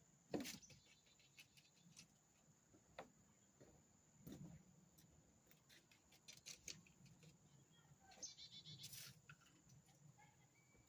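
Faint bird calls, including a short quick chirping trill about eight seconds in, among scattered small clicks and taps, over a faint steady high-pitched tone.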